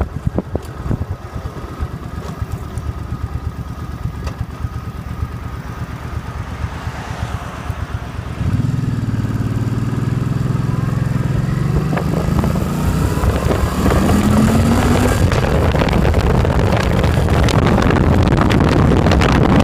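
Suzuki Boulevard C50's 805cc V-twin engine running while riding. It is fairly quiet at first, then about eight seconds in it gets louder and pulls harder, its pitch rising as the bike accelerates. Wind noise on the microphone builds as speed picks up near the end.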